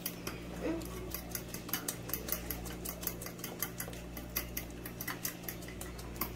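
Fork beating thick pancake batter in a glass bowl: a quick, even run of light ticks of metal against glass, about four or five a second.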